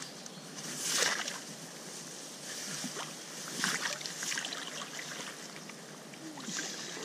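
Shallow river water splashing and sloshing as a person wades and moves a large wels catfish about in it, with a few louder surges about a second, three and a half seconds and six and a half seconds in.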